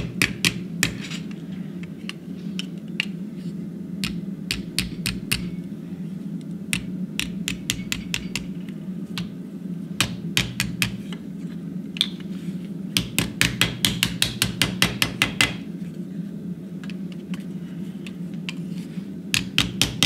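Hand hammer striking a red-hot steel hinge strap on an anvil, forging its leaf shape. The blows come in quick runs of several a second, with pauses between the runs.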